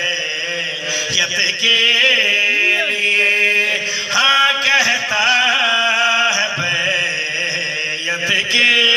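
A man chanting a zakir's melodic recitation at a Shia majlis, his voice rising and falling in long, drawn-out phrases over a steady held tone.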